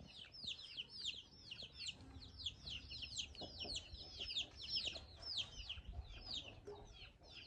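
Chicks peeping without pause: a stream of short, high notes, each falling in pitch, several a second, faint under a low rumble.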